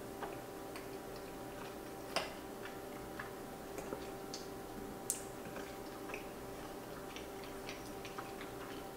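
Faint eating sounds: closed-mouth chewing of cheesy pasta with scattered small clicks and ticks of a metal fork working in a ceramic bowl. Two sharper clicks stand out, about two seconds in and about five seconds in, over a steady faint hum.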